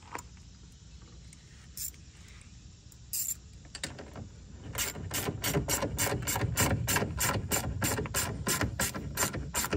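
Small ratchet wrench with a 10 mm socket clicking as it tightens the nuts that hold a tow mirror to the truck door. A few scattered clicks, then from about five seconds in a steady run of about four clicks a second.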